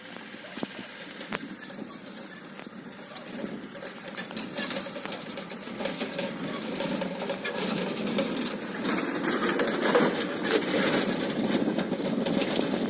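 Small single-cylinder engine of a walk-behind tractor running under way, with a clattering rattle, growing louder, then cut off suddenly at the end.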